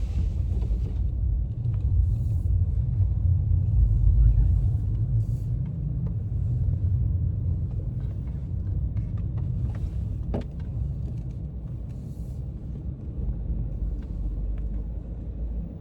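Pickup truck driving down a snowy hill, heard from inside the cab: a steady low rumble of engine and tyres, with a few light clicks and knocks.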